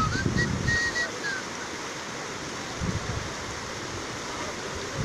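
Steady rush of a muddy river in flood, its water flowing fast past the bank. A few short, high whistled chirps sound in the first second and a half.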